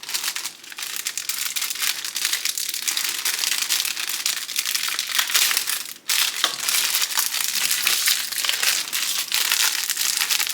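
Plastic packaging crinkling and crackling continuously as it is handled and pulled off, with a brief pause about six seconds in.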